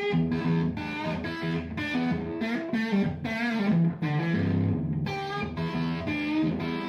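Intro music played on distorted electric guitar, a quick run of picked notes at a steady level.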